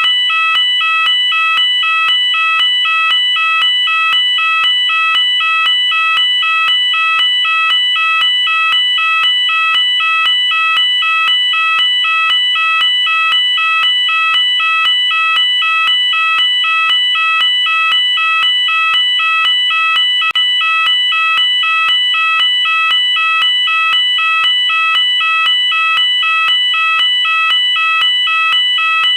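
UK fire alarm sounding: a loud alarm tone pulsing in a rapid, even, unbroken rhythm.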